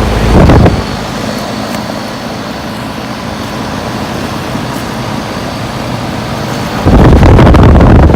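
Heil 5000 air conditioner's outdoor condensing unit running with a steady hum. Wind buffets the microphone with a loud rumble in the first second and again from about seven seconds in.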